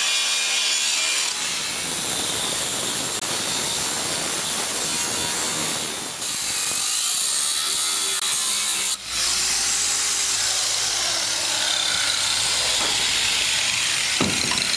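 Electric angle grinders surface-grinding steel hull plate along a welded butt-joint seam, grinding down the tack welds to clean steel before welding. Steady grinding, with a momentary break about nine seconds in.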